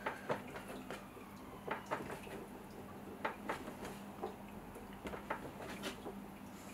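Clay being wedged by hand on a wooden tabletop: soft, irregular thuds and taps as the lump is pressed down, rocked and lifted, often two or three close together, about one to three a second.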